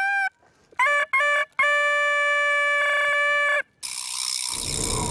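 Suona (Chinese shawm) playing loud, bright, reedy held notes: a note breaks off, a few short notes scoop upward, then a long note is held for about two seconds. About four seconds in, a rougher, noisy sound with a wavering tone takes over.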